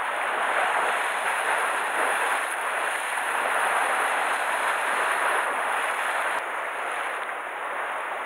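Steady wash of sea surf against a rocky shore, swelling and easing slowly.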